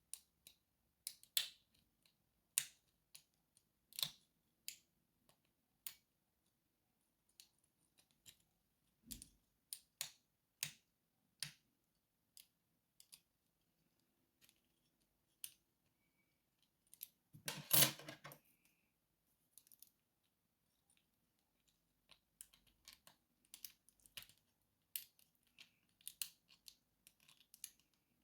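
Small, irregular metallic clicks of a lock pick and tension tool working the pins of a pin-tumbler lock. There is one longer, louder clatter about eighteen seconds in.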